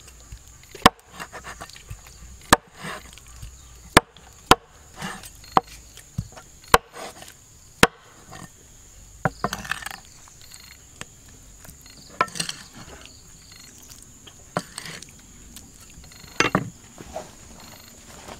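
Chopping on wood: about a dozen sharp single chops at an uneven pace, mostly a second or more apart and sparser in the second half, over a steady high insect drone.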